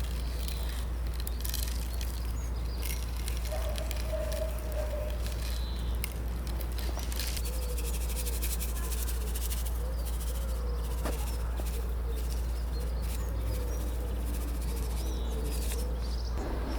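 Outdoor ambience of birds and insects chirping over a steady low rumble, with scattered short clicks and a faint wavering tone.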